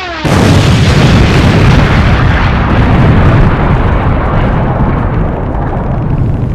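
The last of a falling bomb's whistle drops away, and about a quarter second in a loud bomb explosion goes off. Its rumble slowly dies down.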